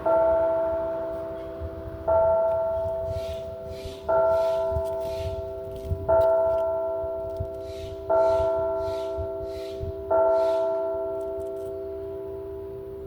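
Church bell struck six times about two seconds apart, each stroke ringing on and fading before the next, the last left to die away.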